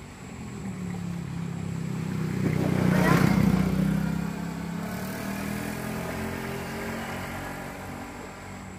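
A motor vehicle's engine passing by, growing louder to a peak about three seconds in, then slowly fading.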